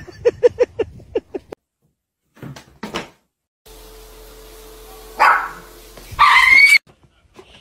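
A dog's voice: a quick run of short yips in the first second and a half, then, after a pause, two loud barks, the second one drawn out and rising in pitch.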